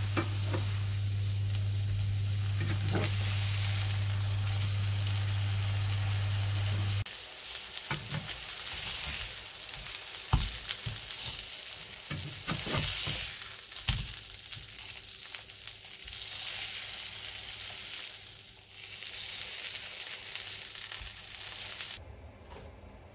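Two plant-based burger patties sizzling as they fry in a nonstick frying pan, with a steady low hum that stops about seven seconds in. In the middle a spatula knocks and scrapes against the pan among the patties. The sizzling cuts off near the end.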